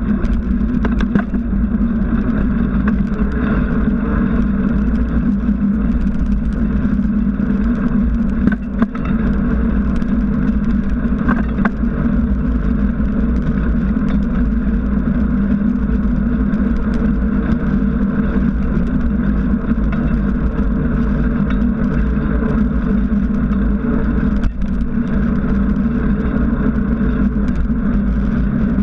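Steady rolling noise from a moving bicycle heard through its mounted camera: a knobby tyre humming on asphalt over a low rumble of wind on the microphone.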